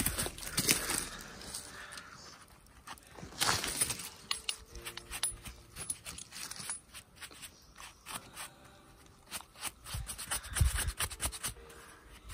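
Scraping and brushing on a freshly picked porcini (Boletus edulis): soil and pine needles knocked and scraped off the stem base, then a small bristle paintbrush sweeping over the cap and stem in short, irregular scratchy strokes.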